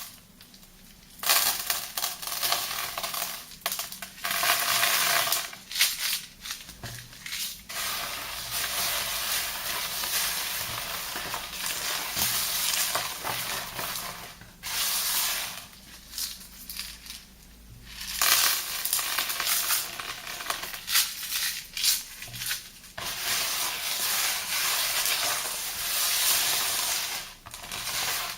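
Thick soapy lather and wet paste being mixed and squished by hand, a crackling, fizzing hiss of popping foam, in long stretches with a few short pauses.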